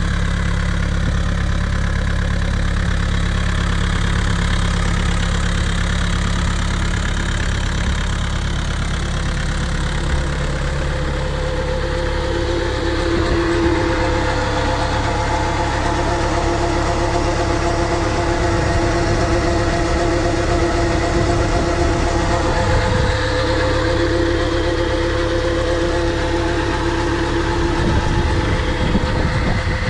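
Tractor diesel engine running steadily at a constant speed, driving a PTO irrigation pump. About halfway through, a steady whine joins the engine hum.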